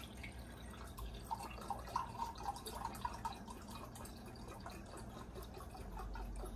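Chicken stock pouring from a carton into a Pyrex glass measuring cup, with a quick run of small splashes and drips starting about a second in and lasting a couple of seconds.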